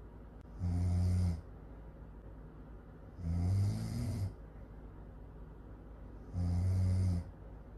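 Loud snoring: three long snores about three seconds apart, each a low buzz with a breathy hiss.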